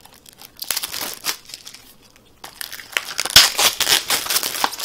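Plastic shrink wrap on a Blu-ray case crinkling and tearing as it is cut open with scissors and pulled off. There is a short burst of crackling, a brief pause, then a longer, louder stretch of crinkling from about halfway in.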